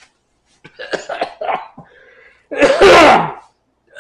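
A man coughing and clearing his throat into a napkin, set off by the burn of extremely spicy ramen: a run of short coughs about a second in, then one long, loud cough near the three-second mark.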